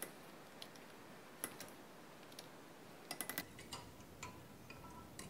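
A metal fork stirring active dry yeast into warm sugar water in a glass measuring cup, faintly clinking against the glass. Irregular light ticks, a quick cluster of them about three seconds in, and a few short rings from the glass near the end.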